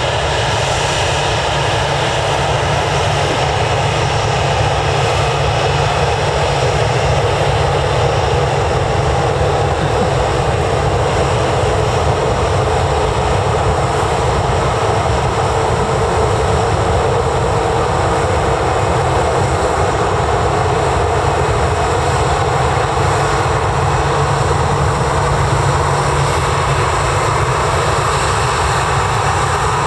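Aircraft engines running steadily and loudly, an even roar with faint steady high-pitched tones above it and no rise or fall.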